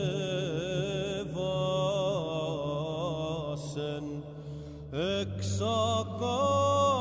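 Greek Orthodox Byzantine chant: voices sing a slow, ornamented Greek hymn melody over a steady low held drone. The singing pauses briefly about four to five seconds in, then a new phrase begins.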